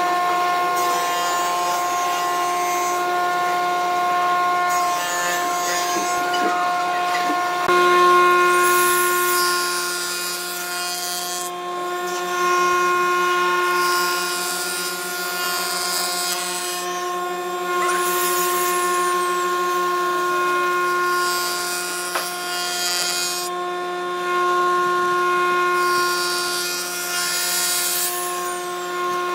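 Woodworking jointer running with a steady hum, its cutter head planing the faces of a glued-up segmented wooden cylinder fed across the table. The hum grows louder about eight seconds in.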